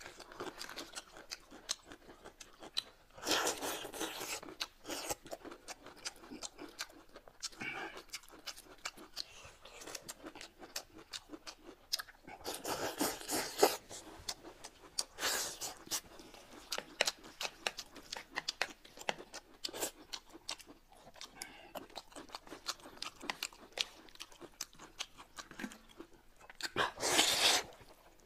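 Close-miked eating sounds: steady chewing and crunching with many small wet mouth clicks, broken by a few louder noisy stretches. Near the end comes a loud slurp as a mouthful of noodles is sucked in.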